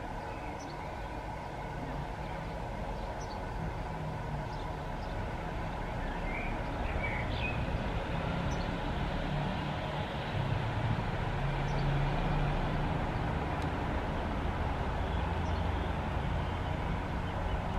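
Low vehicle rumble that slowly grows louder, with birds chirping briefly over it.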